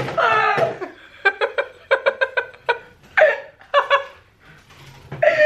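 A woman laughing in rapid runs of high-pitched ha-ha pulses, in a few bouts, with a short lull near the end.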